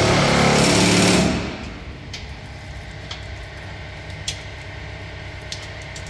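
A handheld power tool runs at steady speed and stops about a second in. A few light clicks and taps follow over quiet shop background.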